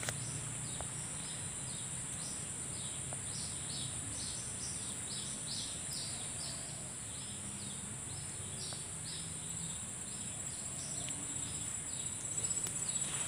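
Steady high-pitched insect drone of crickets or similar insects, with a run of short repeated chirping notes over it.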